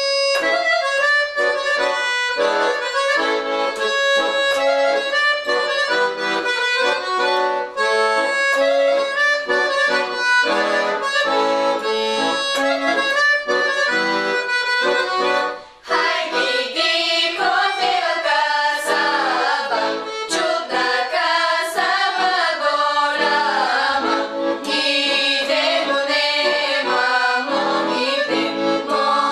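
Background music in a traditional folk style, carried by an accordion, with a brief break about halfway through before the melody resumes.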